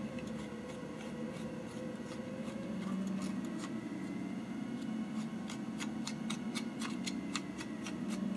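Light plastic clicks from a hand-held 3D-printed helix looper mechanism as its parts are worked by hand, sparse at first and coming several a second in the second half. A steady low hum runs behind, from a 3D printer printing.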